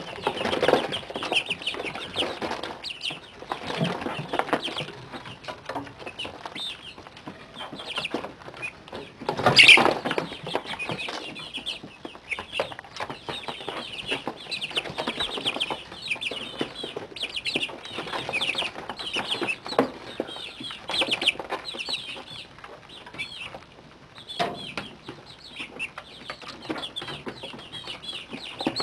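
A brood of month-old chicks peeping and chirping constantly, many short high calls overlapping. About ten seconds in there is one brief louder noise.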